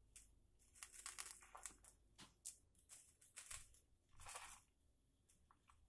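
Faint crackle of coarse salt grains sprinkled by hand over layered sardine fillets: scattered small ticks, with a short soft hiss about four seconds in.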